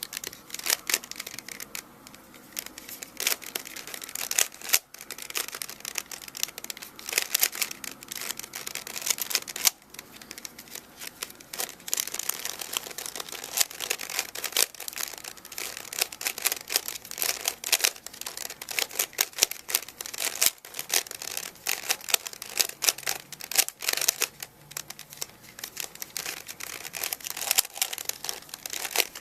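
Rubik's Cube being turned rapidly by hand: a continuous, irregular clicking and clacking of the plastic layers, with a few brief pauses.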